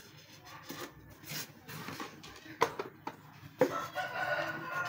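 Two sharp knocks, then a held animal call lasting about a second near the end.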